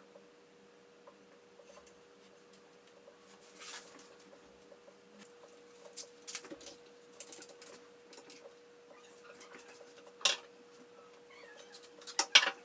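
Woodworking clamps being fitted to a glued-up wooden strip: quiet rubbing, small clicks and knocks of metal clamp bars and jaws against wood. There is a sharp clack about ten seconds in, and a quick run of loud clicks near the end as a trigger clamp is squeezed tight.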